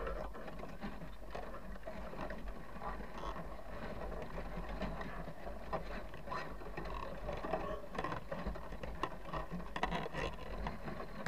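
Muffled underwater sound picked up through a GoPro's housing inside a crab pot: Dungeness crabs' legs and shells clicking and scraping against the pot's wire mesh and bait box, over a steady low rumble.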